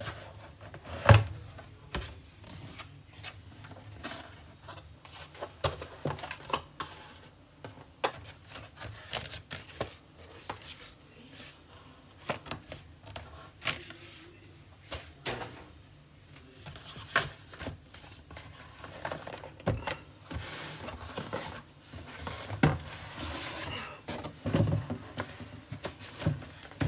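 Cardboard packaging being handled and opened by hand: a run of taps, clicks and rustles of cardboard and paper, with one sharp knock about a second in.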